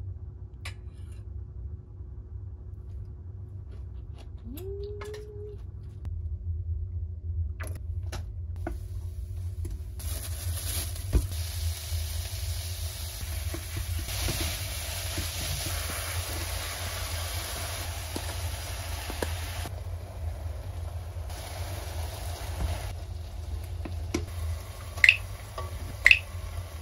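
Food frying in a pan: a few utensil clicks and knocks, then an even sizzle that sets in about ten seconds in and keeps going. Near the end come a few short, loud, high-pitched tones.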